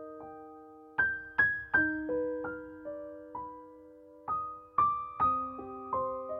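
Gentle background piano music: single notes and small clusters struck every half second or so, each ringing on and slowly fading.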